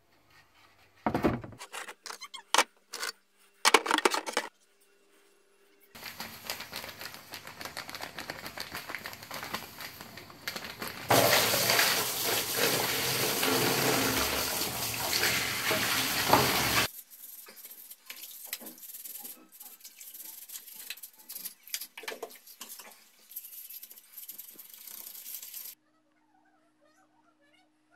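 A few knocks and clatters of plastic being handled, then water pouring into a plastic basin onto the disassembled parts of a Makita power planer. It is loudest for several seconds in the middle, then quieter and broken with clicks.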